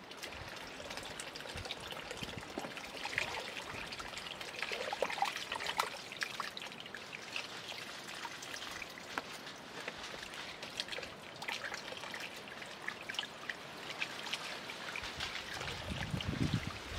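Water trickling and splashing as peeled carrots are rinsed by hand in a plastic basin, with many small drips and splashes, and a fuller splash near the end.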